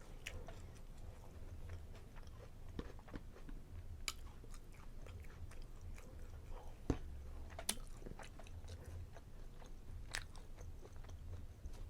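A person chewing food close to the microphone, faint and wet, with small mouth clicks and a few sharper clicks scattered through.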